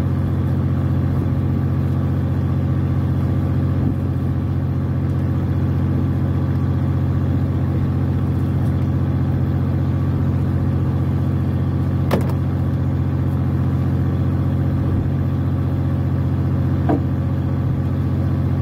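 Steady low drone of the fishing boat's engine running, with one sharp click about twelve seconds in.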